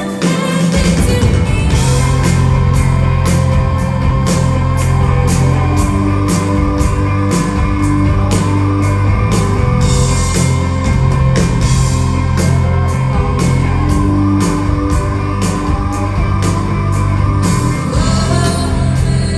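Rock band playing live, heard from the crowd: electric guitars, bass guitar and drum kit, with a steady beat of about two drum hits a second.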